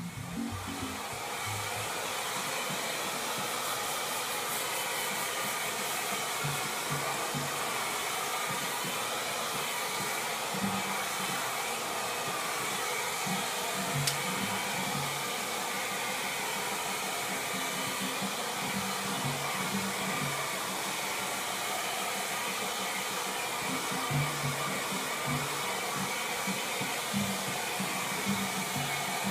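Handheld hair dryer running steadily, a constant blowing rush, aimed over a freshly coated sheet of paper to dry the sensitizer coating.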